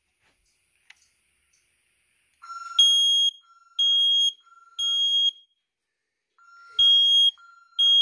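Fire alarm set off by a wireless smoke detector, beeping in the temporal-three fire pattern. Three high beeps of about half a second each start a few seconds in, then after a pause a second group of three begins near the end. A fainter, lower tone sounds between the beeps.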